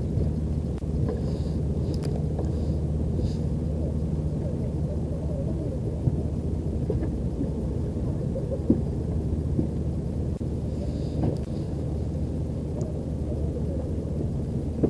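Boat engine running steadily, a low drone, with a few light knocks.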